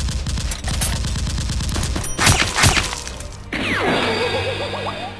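Rapid automatic gunfire sound effect, a fast even string of shots, dubbed over a Nerf blaster being fired. A little after two seconds it ends in two louder, heavier hits. From about three and a half seconds it gives way to a sound effect with falling, wavering tones.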